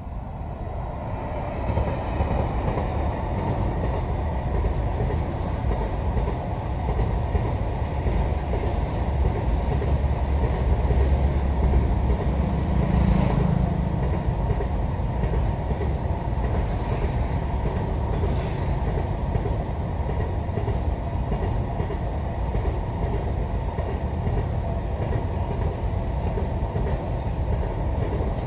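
A freight train of enclosed car carrier wagons rolls past at speed: a steady rumble of steel wheels on the rails with a clickety-clack over the joints, building up over the first couple of seconds and then holding, with a few brief clanks.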